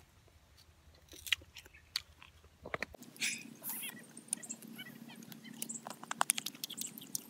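Close-up eating sounds: a person biting and chewing crunchy food, with wet mouth clicks and lip smacks. The clicks are sparse for the first three seconds, then come thick and fast from about three seconds in.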